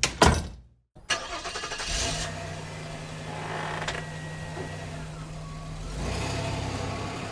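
A door bangs shut, then after a brief gap a car engine starts and runs steadily.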